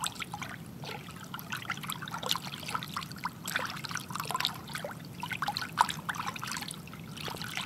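Water trickling and bubbling: a continuous patter of many small droplet plinks and bubbles.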